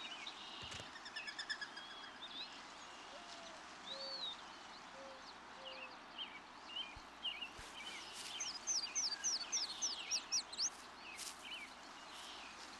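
Mourning dove cooing, a soft low call of four or five notes, under a chorus of small songbirds chirping. A quick run of high, falling notes comes from a songbird in the second half.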